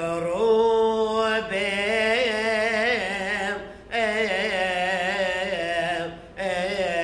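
A priest's solo male voice chanting a liturgical hymn unaccompanied, holding long notes with wavering ornaments and vibrato. He breaks briefly for breath a little past halfway and again near the end.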